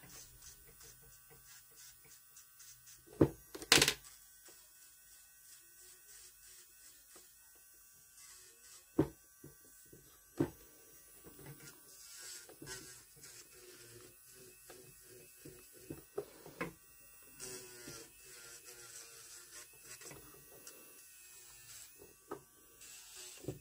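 Electric nail drill (e-file) running with a faint, steady high whine as its bit works around the cuticles of gel-polished nails. A few sharp clicks and knocks stand out over it, the loudest pair a few seconds in.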